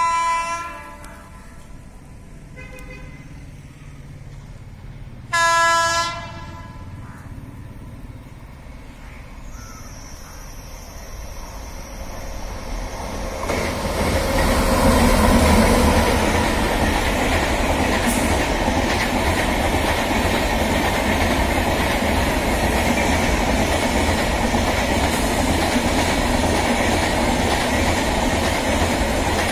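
WAP-7 electric locomotive sounding two short horn blasts about five seconds apart as it approaches. The locomotive and its LHB coaches then pass close by at speed, with the steady noise of wheels on the rails building up about halfway through and holding.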